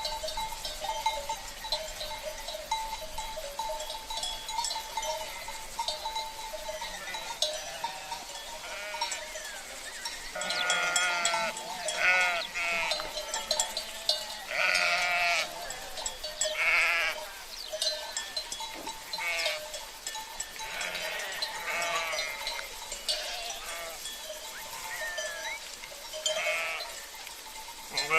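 A flock of sheep bleating, with many wavering calls overlapping, most of them from about ten seconds in, and sheep bells clinking among them.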